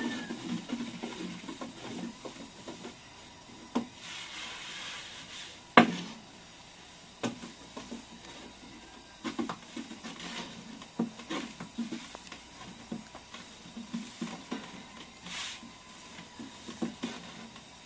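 Long thin wooden rolling pin rolling flatbread dough on a round wooden board, with scattered light taps and knocks. One sharp knock about six seconds in.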